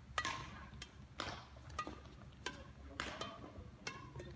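Several irregular sharp taps and short squeaks echoing in a large badminton hall: rackets striking shuttlecocks and shoes on the wooden court.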